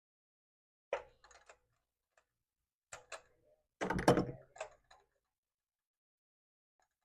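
Metal hand tools clinking and knocking while spark plugs are worked out with a ratchet and spark plug socket: short groups of clicks about one and three seconds in, then the loudest clatter about four seconds in.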